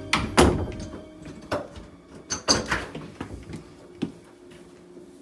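Doors and cupboards being opened and shut in a search of the house: a string of sharp knocks and clunks, the loudest in the first half second, a cluster about two and a half seconds in and a last one about four seconds in.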